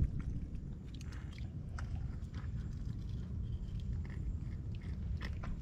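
Small wet clicks, scrapes and squelches as hands grapple a mud crab in a shallow pool of mangrove mud, scattered irregularly over a steady low rumble.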